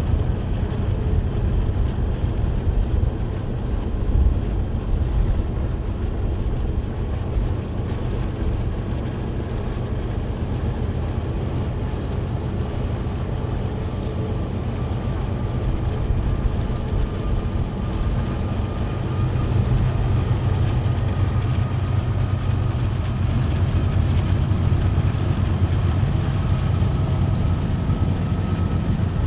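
Two KiwiRail diesel-electric freight locomotives working hard with a train of container wagons: a steady, deep engine drone heard from a vehicle driving alongside, mixed with its road noise. The drone grows louder in the second half as the locomotives come close, with a faint whine above it.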